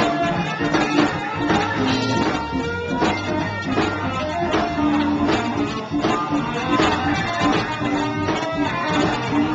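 Live electric blues band playing: electric guitar and bass over a drum kit keeping a steady beat.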